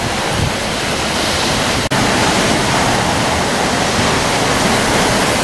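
Tropical cyclone wind and driving rain blowing hard as a loud, steady rush, with low gusts buffeting the microphone. There is a brief break in the sound about two seconds in.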